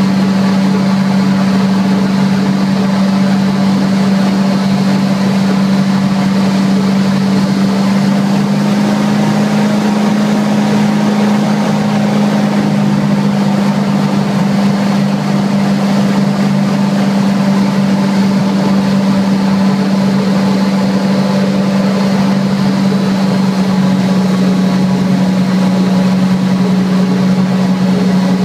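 Airboat's engine and large air propeller running steadily under way, a loud drone with a strong hum that holds one pitch throughout.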